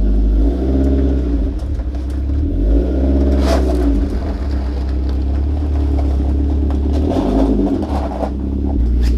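A vehicle engine running, its revs rising and falling several times as it is driven slowly, with a brief rush of noise about three and a half seconds in.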